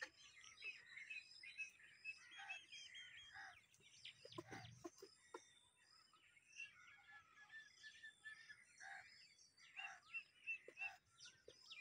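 Faint chirping and calling of several small birds, short high notes repeated in quick runs.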